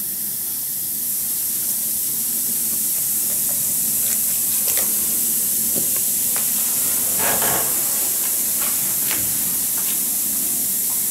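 Sunlife multivitamin effervescent tablet fizzing in a glass of water: a steady hiss of carbon dioxide bubbles from the citric-acid reaction, with scattered faint pops.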